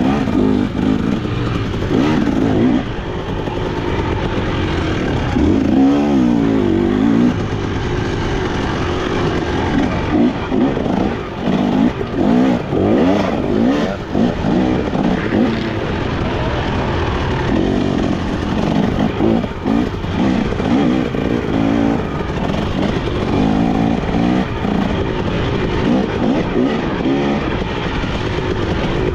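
Motocross dirt bike engine revving hard under race riding, its pitch rising and falling again and again.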